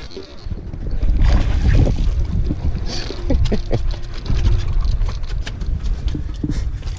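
Wind buffeting the camera microphone in a heavy low rumble, with scattered knocks and scuffs of sandalled footsteps on breakwater boulders.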